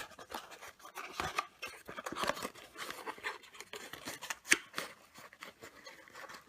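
Cardboard box of chocolate surprise eggs being opened and handled: scattered rustles, scrapes and small clicks, with one sharper click about four and a half seconds in.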